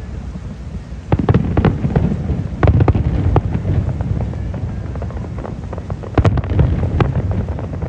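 Aerial fireworks shells bursting in quick succession, sharp booms and crackles over a continuous low rumble, with the densest volleys about a second in, between two and a half and three and a half seconds in, and a little after six seconds.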